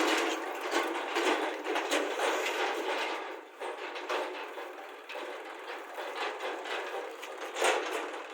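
Mechanical clattering and rattling with quick irregular clicks, like a machine or vehicle sound effect, with a sharp louder clack near the end.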